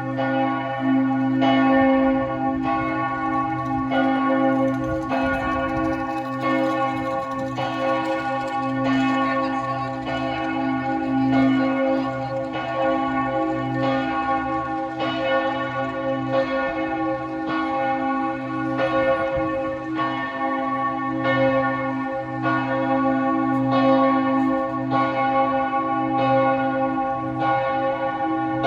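Church bells of St. Michael's Church in Vienna ringing: strikes about once a second over a steady hum of overlapping bell tones that never dies away.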